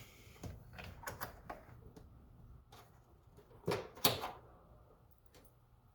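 Scattered light plastic clicks and knocks as an electrical connector is worked loose from the brake fluid reservoir's level sensor, with two louder clicks about four seconds in.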